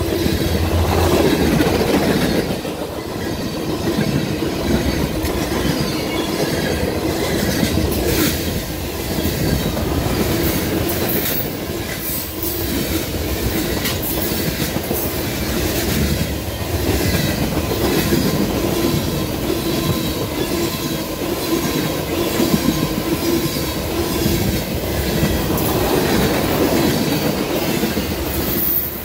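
Freight train of tank cars and covered hoppers rolling past at speed close by: a steady loud rumble of steel wheels on rail, with sharp clicks and clatter as wheels cross rail joints.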